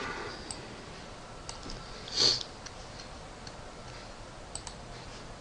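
A person's single short sniff about two seconds in, over quiet room tone with a few faint mouse clicks.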